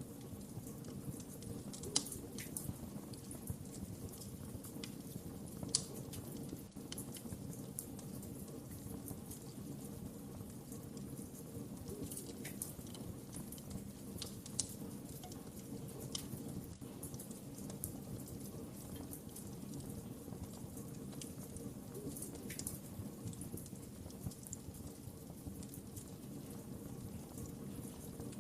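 Wood fire crackling in a fireplace: a steady low rumble of burning with scattered sharp pops and snaps, the loudest about two seconds in and near six seconds.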